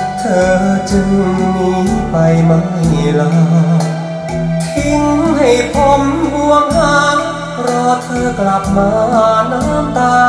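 A recorded song with a singing voice over sustained bass notes and a steady drum beat, played back over ProAc Studio 118 stand-mounted speakers.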